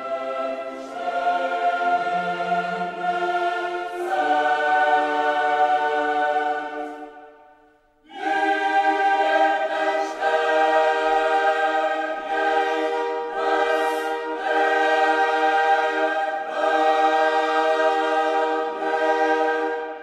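Background music: a choir singing slow, sustained chords. It fades out about seven seconds in, starts again a second later, and fades away at the end.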